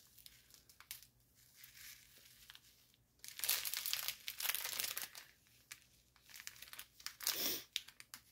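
Clear plastic bag of diamond-painting drill packets crinkling as it is handled and turned. It is faint for the first three seconds, loudest for about two seconds from a little after three seconds in, with another short crinkle near the end.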